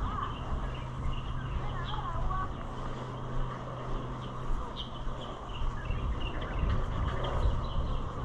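Station platform ambience: small birds chirping over a low, uneven rumble and a steady low hum that fades about halfway through.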